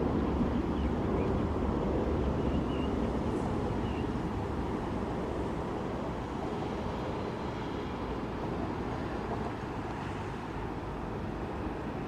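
Jet airliner engine noise, a steady deep rush that slowly fades.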